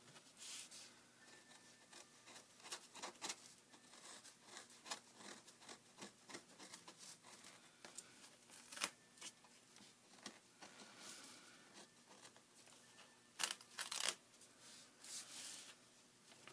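A craft knife scraping and cutting old paper off the inside edge of a book's cover board, making quiet, irregular scratches and small tearing sounds, louder twice near the middle and near the end.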